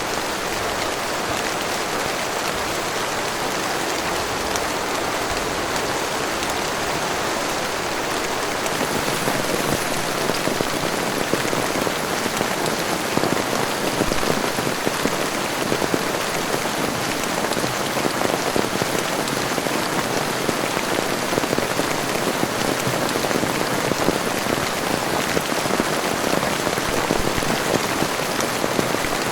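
Heavy rain falling steadily, dense with the ticks of many close drops; it grows heavier about nine seconds in.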